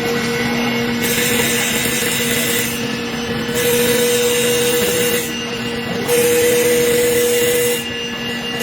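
Wood lathe running with a steady motor hum while a turning tool cuts into the spinning wooden table leg, a loud hissing scrape that comes and goes in passes of about a second and a half, three times and starting again near the end.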